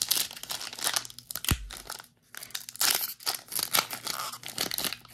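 Foil wrapper of a Pokémon Scarlet & Violet booster pack crinkling and tearing as it is ripped open by hand, a run of sharp crackles with a short pause about two seconds in and a brief low bump just before it.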